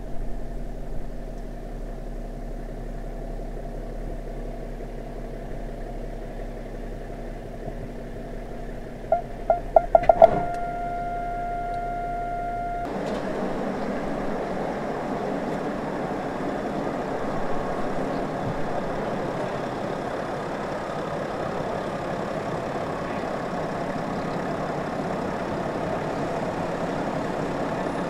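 BMW 7 Series parking-sensor warning: quickening beeps that merge into one continuous tone as the car closes on the wall, heard over the steady hum inside the cabin. After a cut, the car's engine running steadily as it moves itself by remote control.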